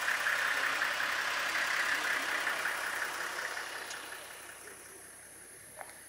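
Safari 4x4's engine idling, a steady running noise that fades away after about three seconds.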